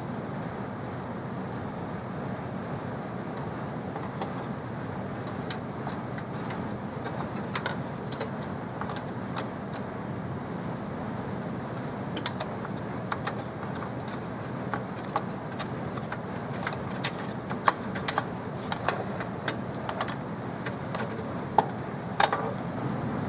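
Scattered light clicks and small metallic taps, more frequent in the second half, over a steady low hum. These fit computer parts being handled and fitted during PC assembly.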